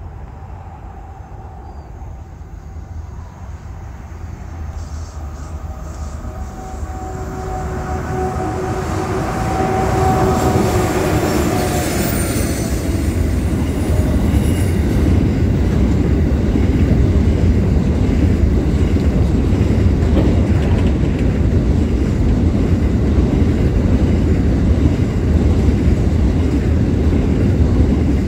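CBH grain train approaching at speed and growing steadily louder over about ten seconds, its tone falling slightly in pitch as the head of the train passes. A long string of covered grain hopper wagons then rolls by with a loud, steady rumble of wheels on rail.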